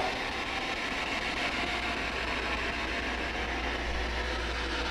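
Ghost hunter's spirit box giving a steady hiss of radio static, with a low hum underneath, while it is listened to for a spirit's answer.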